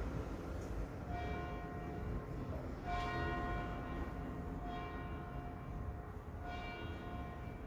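Church tower bell tolling: four strokes at a slow, even pace, about one every two seconds, each ringing on as a cluster of steady tones.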